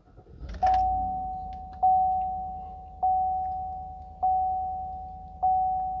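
A 2018 Chevrolet Silverado's 5.3-litre V8 starts about half a second in and keeps running steadily, under the dash warning chime dinging five times, about every 1.2 seconds. The chime is the loudest sound.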